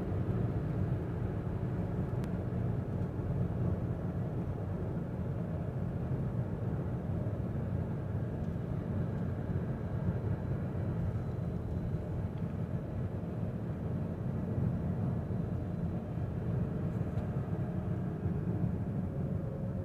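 Steady low hum and road rumble inside a 2016 Toyota Avensis III 1.8 with a CVT gearbox while driving; the owner suspects the CVT of making the hum.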